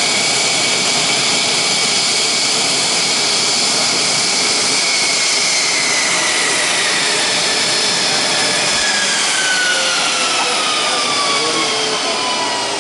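Mitsubishi F-2's General Electric F110 turbofan running loud during a ground engine run-up. About halfway through, its whine starts falling steadily in pitch as the engine is throttled back, and the sound eases a little near the end.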